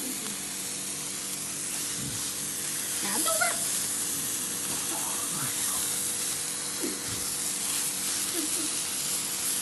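Handheld firework burning with a steady fizzing hiss.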